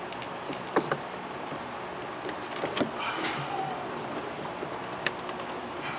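Plastic wiring connector being worked onto the wiper motor pulse board under a Chevy S10's hood: several sharp clicks and light knocks spread through, over a steady background hiss.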